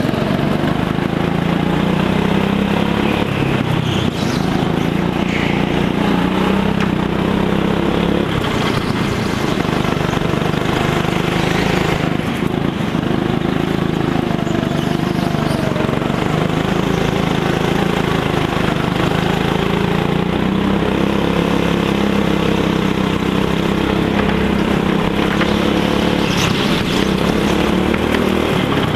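Go-kart engine running continuously at speed, heard onboard, its pitch rising and falling as the kart speeds up and slows for the corners.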